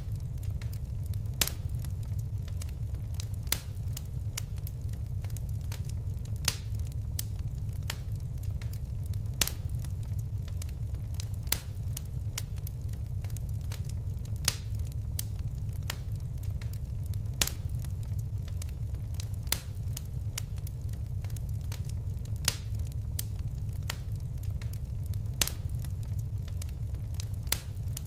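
Wood fire crackling: a steady low rumble of flames with sharp pops and snaps at irregular intervals, a few loud ones every couple of seconds.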